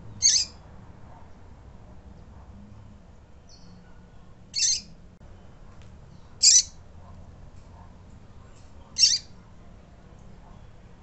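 A female double-collared seedeater (coleiro) calling: four short, high-pitched chirps spaced about two to four seconds apart. This is the female's call that breeders play to stir a male coleiro into singing.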